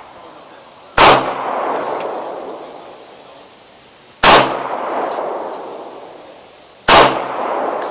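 Three shots from a Glock 19 9mm pistol, a few seconds apart, each followed by a long echo that dies away slowly.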